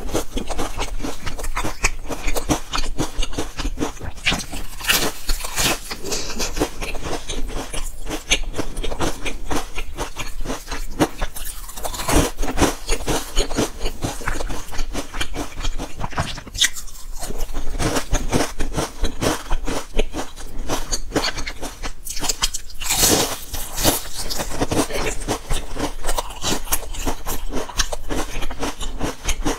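Someone biting and chewing a crisp waffle-patterned biscuit: continuous crackly crunching with many small cracks.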